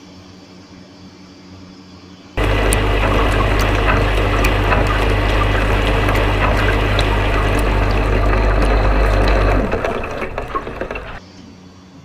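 Winterhalter GS501 commercial dishwasher's pump starting suddenly about two seconds in, driving water spraying hard through the wash chamber. Near the end the pump's low hum cuts out and the spray dies away over about a second.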